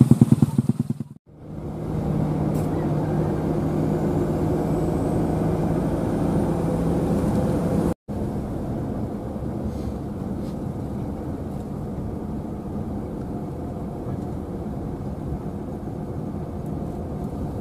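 Motorcycle engine running steadily, broken by two short gaps about a second in and about eight seconds in.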